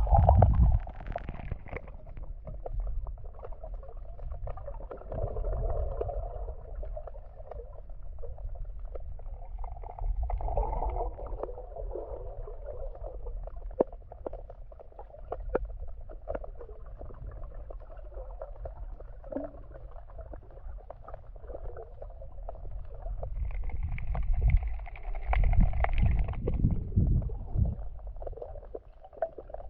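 Muffled sloshing and gurgling of seawater picked up by a camera's microphone underwater, with a steady low rumble and scattered small clicks. Louder low rumbles come near the start and again near the end.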